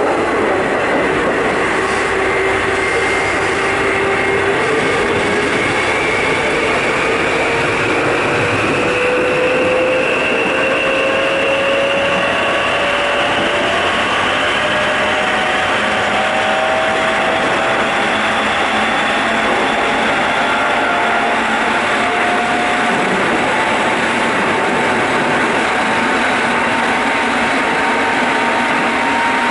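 Keikyu 800-series commuter car running, heard from the floor above its bogie: a steady rumble with a motor and gear whine that rises slowly in pitch as the train picks up speed. This set is singled out by the uploader for an odd noise on acceleration and braking that other cars of the class don't make.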